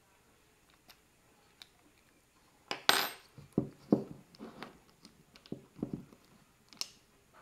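Light clicks and knocks of small parts being handled and set down on a wooden workbench while the stepper motor and plastic Z-axis housing of a 3018 CNC router are taken apart. A few faint ticks at first, then a cluster of sharper clinks and knocks about three seconds in.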